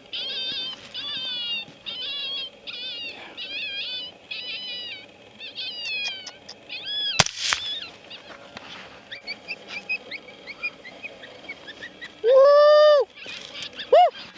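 Short, high, wavering coyote-like yips repeating about twice a second, broken about seven seconds in by a single suppressed .223 rifle shot. Near the end comes a loud, drawn-out call that rises and falls, then a shorter one.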